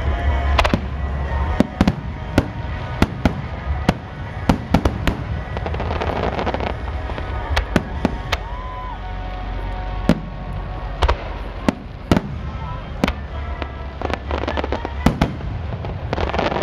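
Aerial firework shells bursting overhead in a rapid, irregular string of sharp bangs, roughly one to two a second.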